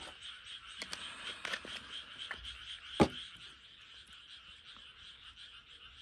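A chorus of frogs calling steadily, with a few light clicks and one sharp knock about three seconds in.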